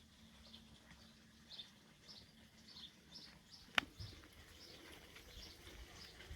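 Faint bird chirping, short high calls repeating every fraction of a second, with one sharp click a little past the middle.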